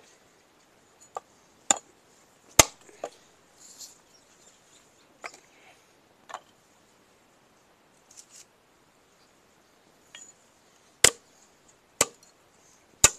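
Firewood being chopped by hand: a series of sharp, irregularly spaced chops with pauses between them, three strong ones coming about a second apart near the end.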